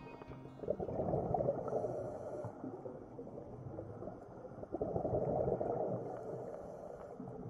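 Underwater sound through a diving camera: a scuba diver's exhaled bubbles rumble in two long swells about four seconds apart, each with a faint hiss from the regulator.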